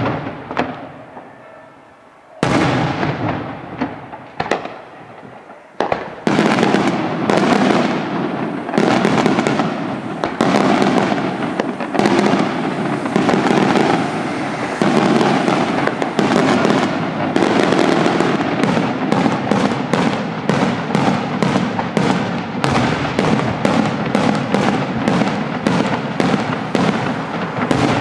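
Daytime aerial fireworks exploding. A few single loud bangs come first, each trailing off. From about six seconds in they build into a dense, continuous barrage of rapid bangs and crackling.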